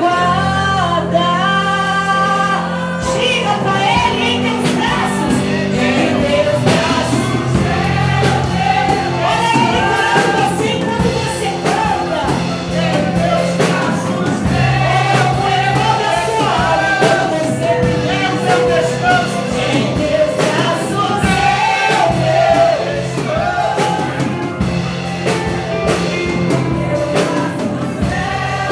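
Gospel worship song with sung vocals over a steady band accompaniment and sustained bass.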